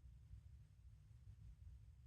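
Near silence, with a faint steady low rumble.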